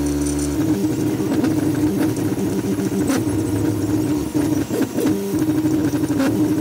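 3D printer stepper motors whining as the axes move, at steady pitches that jump from one to another every fraction of a second to a second.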